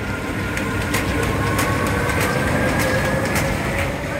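Alpenexpress Enzian roller coaster train rolling along its steel track: a steady rumble of wheels, with a string of sharp clicks and a faint whine that rises slowly in pitch.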